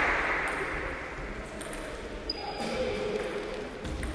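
Table tennis ball clicking against bats and the table in a few separate hits as a rally starts, with a background of voices in the hall.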